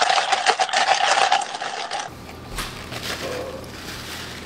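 A rapid, dense rattle with a steady mid-pitched tone under it, from an inserted meme clip, cutting off suddenly about two seconds in; after it, only quiet room sound.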